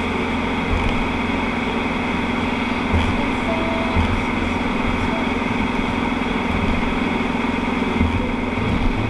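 Steady in-cab drone of a vehicle cruising on a wet motorway: engine and tyre noise, with a few faint knocks.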